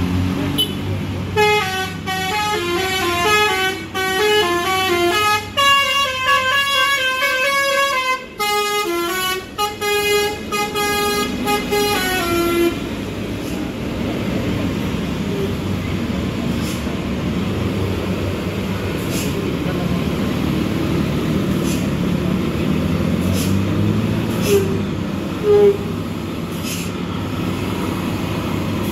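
A bus's multi-tone musical horn plays a stepping tune for about ten seconds. Then comes the steady low rumble of heavy truck engines, with a short horn toot near the end.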